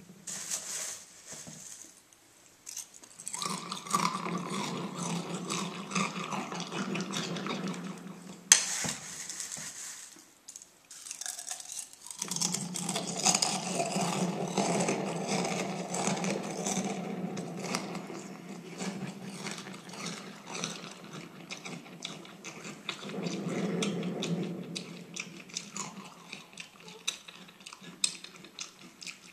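Frosted Flakes cereal being chewed right at a microphone with the gain turned all the way up: loud, dense crunching. There is a sharp click about eight and a half seconds in, then a short pause before the chewing resumes.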